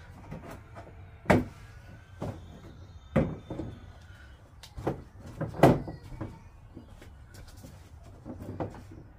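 Knocks and clatter of plastic toy parts being handled and fitted together during assembly, with three sharper knocks: about a second in, about three seconds in, and near six seconds.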